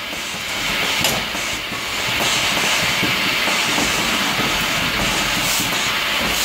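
Automated testing and sorting machine for mobile-phone cooling plates running: a steady hiss with light mechanical clicking and clatter.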